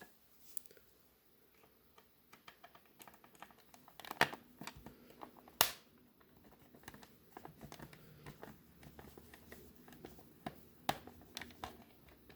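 Small scattered clicks and taps of a plastic VHS cassette shell being handled and worked on by hand, with two sharper clicks about four and five and a half seconds in.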